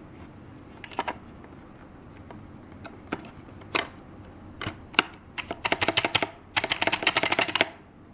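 Computer keyboard keys being pressed: a few scattered clicks, then two quick runs of typing in the second half that stop shortly before the end.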